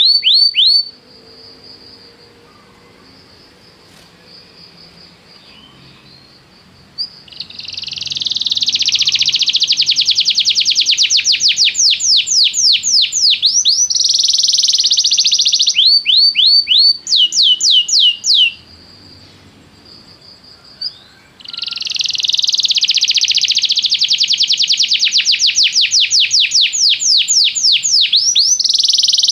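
Canary singing. Long, loud trills of rapidly repeated sweeping notes are broken by two soft passages of a few seconds each, one soon after the start and one about two-thirds of the way through.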